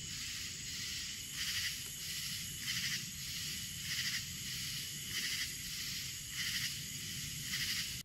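Night-time insect chorus: a steady high-pitched buzzing drone that swells in a regular pulse about once every second or so.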